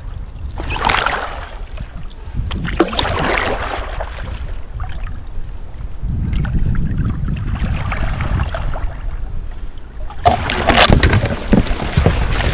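Kayak paddle strokes dipping and pulling through river water, a splashing stroke every two to three seconds, busier near the end. A low rumble runs under the middle strokes.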